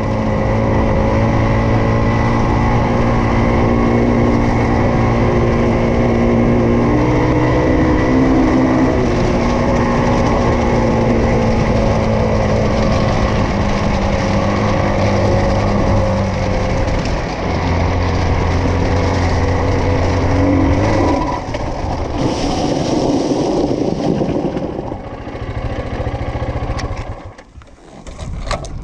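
Motoland XR250 Enduro's single-cylinder 250 cc engine running steadily as the bike rides over gravel. About 17 seconds in the drive chain snaps and the engine note changes. A few seconds later the engine tone gives way to gravel crunching as the locked rear wheel skids, and the sound falls away as the bike stops near the end.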